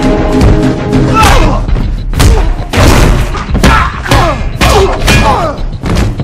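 Action-film fight mix: a driving score under a rapid series of hard hits and thuds, about seven in six seconds, some followed by a short falling ring.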